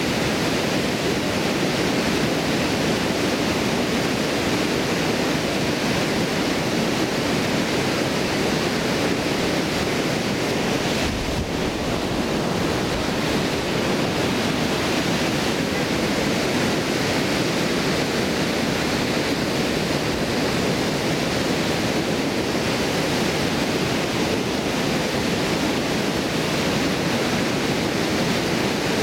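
River water pouring over a stone weir: a steady, unbroken rushing of falling and churning water.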